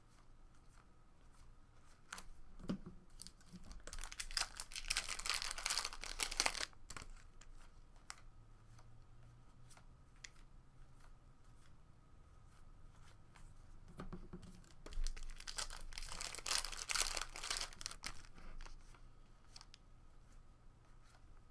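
Wrappers of 2017 Topps Series 1 baseball card packs being torn open and crinkled, twice, each tear lasting about two seconds, with light clicks and rustles of handled cards between.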